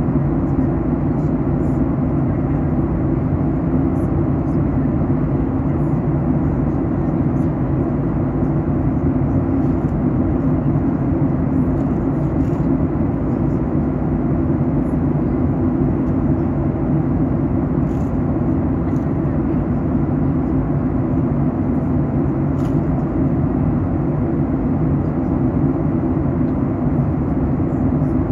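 Steady low cabin drone of a Boeing 737 MAX 8 in descent, heard from inside the cabin: airflow over the fuselage and its CFM LEAP-1B engines.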